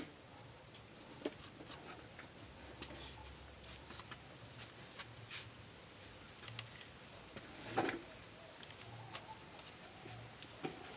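A knife cutting into the stalk of a bunch of green ash plantains and hands of fruit being pulled free: scattered faint cuts, snaps and rustles, with one louder crack about eight seconds in.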